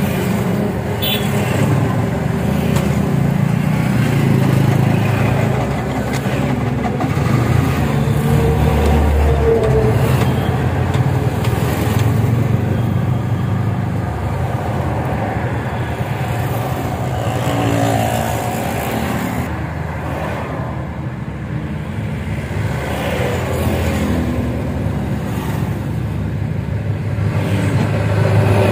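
A motor vehicle engine running steadily, a continuous low drone that rises and falls slightly in loudness.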